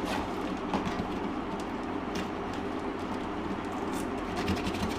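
Rustling and crackling of a delivery parcel's packaging being handled and pulled at while it is opened, with many small crackles over a steady low background hum.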